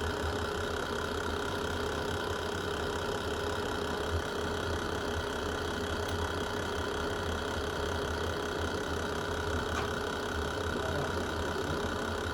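Fireplace ambience: the steady low rumble of a burning fire with only a few faint pops, one of them about four seconds in.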